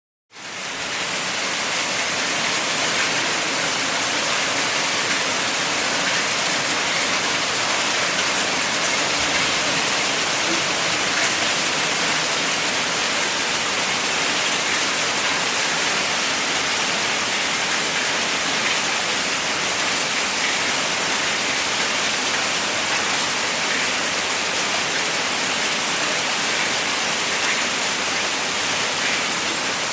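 Hail falling: a dense, steady patter of countless small hits, with no pauses.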